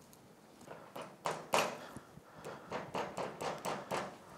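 Steel CV boot band clamp being closed and locked by hand around a rubber boot on an ATV half shaft: a few sharp metal clicks, the loudest between one and two seconds in, then a quick run of lighter clicks as the clamp is worked into place.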